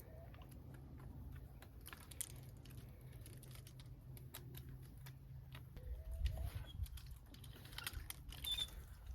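Irregular metallic clicks and taps of a fence wire strainer being worked to tension a chicken-run wire, with a few dull handling thumps about six seconds in.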